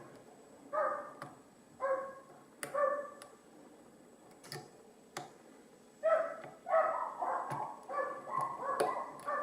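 Dogs barking in the background: a few single barks, a pause, then a quick string of barks near the end. A few sharp clicks come in between.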